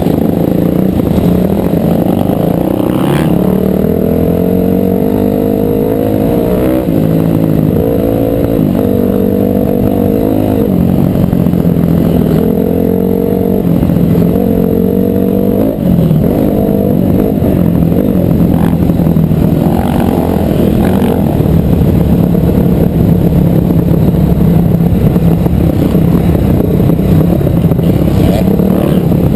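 Dirt bike engine heard up close from an on-board camera, revving up and dropping back several times as the rider shifts through the gears, then running at a steadier pitch through the second half.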